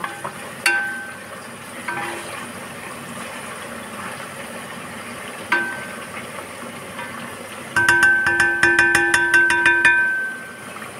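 Potato fries sizzling in hot oil in a granite-coated pot while a wooden spatula stirs them, knocking on the pot a few times so that it rings briefly. Near the end comes a rapid clatter of knocks, about eight a second for two seconds, with the pot ringing.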